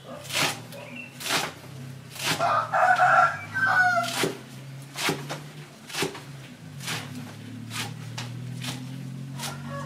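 Cleaver chopping leafy greens on a thick wooden chopping block, a sharp knock about once a second. A rooster crows between about two and a half and four seconds in, over a steady low hum.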